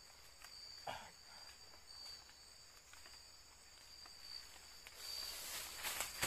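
Night insects calling in a steady high-pitched pulse. There is a short falling sound about a second in, and near the end a rustle of leaves and undergrowth as a person lunges through the plants.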